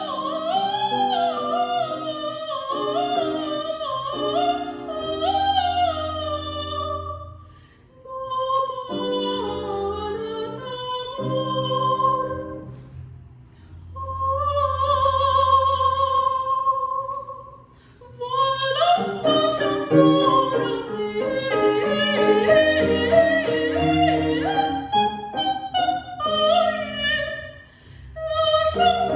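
Coloratura soprano singing quick ornamented runs in the voice's upper range over instrumental accompaniment, with a long held note partway through and a few brief breaks.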